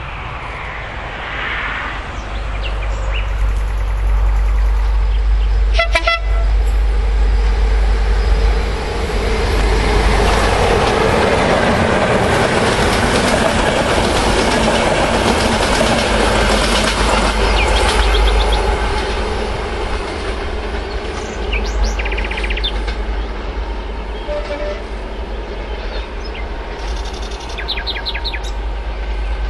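Electric locomotive and passenger coaches passing at speed. A brief horn blast comes about six seconds in, then a swelling rush of wheel and rail noise that peaks as the coaches go by and eases as the train moves away.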